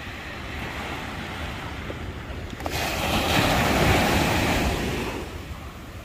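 Small ocean waves breaking and washing up a sandy beach, with steady surf hiss. About halfway through, one louder wash of foam surges in and fades over the next couple of seconds.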